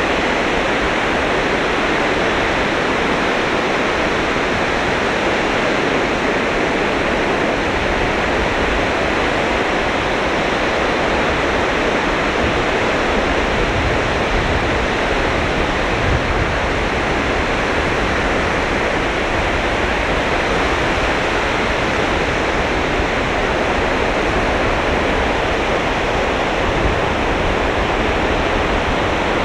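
Sea surf washing onto a sandy beach: a steady, unbroken rush of waves with no single break standing out.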